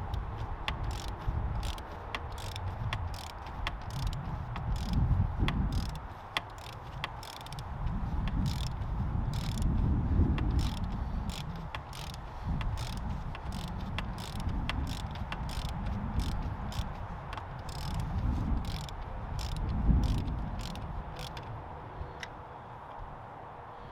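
Ratchet wrench clicking in uneven runs of sharp clicks, a few a second, as a bolt on a RockShox Boxer fork is worked open. Low rumbling handling noise swells and fades under the clicks.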